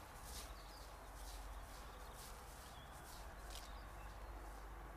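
Footsteps on dry grass, a soft swish about twice a second, as someone walks off across the field, with a few faint bird chirps behind them.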